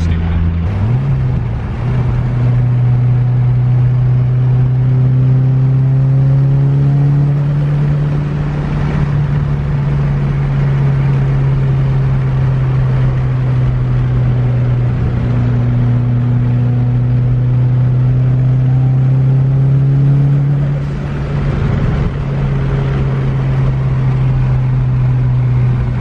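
Turbocharged 4G63 four-cylinder engine of a first-generation Eagle Talon, heard from inside the cabin as a steady drone at highway cruise with road noise. The pitch steps up about a second in, and the drone eases briefly near the end before picking up again.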